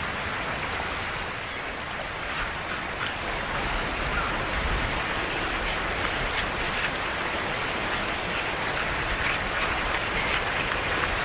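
Steady rushing of river water at a falls.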